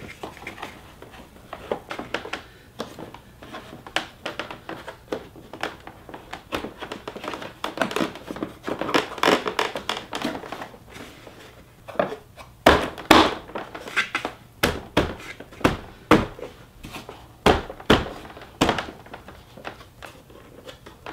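Plastic clicking, knocking and rubbing as an MMD V-Series replacement grille is pressed onto the mounting tabs of a 2016 Mustang GT's plastic front bumper cover. From a little past halfway comes a run of louder, sharp snaps as the tabs click into place.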